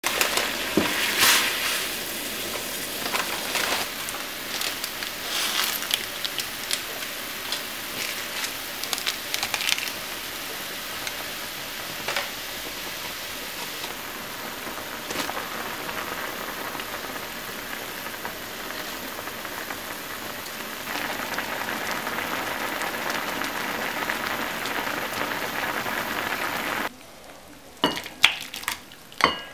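A pot of water, then ramen broth, boiling hard: a steady bubbling hiss with scattered pops and crackles. The boiling stops suddenly near the end, and a few sharp clinks follow as the ramen is tipped from the pot into a ceramic bowl.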